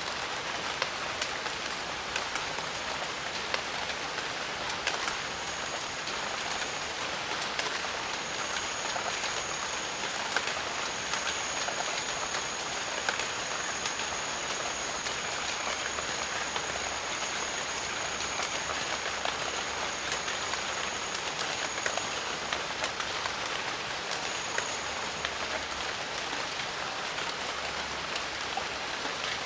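Steady jungle rain, an even patter of drops with scattered individual drop ticks. A thin, steady high-pitched tone sits above the rain from a few seconds in until about two-thirds through, then returns briefly near the end.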